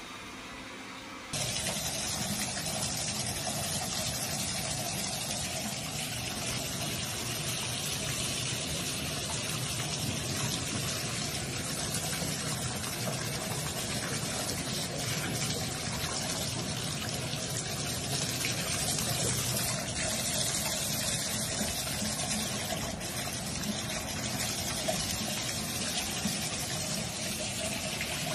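Bathtub faucet running, its stream pouring into the tub and over a cat standing under it, a steady rush of water that starts abruptly about a second in. Before it, a faint steady hum of a robot vacuum.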